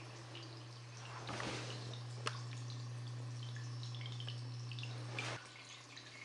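Water trickling and dripping along a small homemade clay channel, with a sharp click a little after two seconds and a steady low hum that cuts off about five seconds in.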